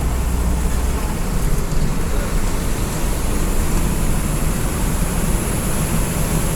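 Bus on the move: steady engine and road noise, with the low engine note changing about a second in.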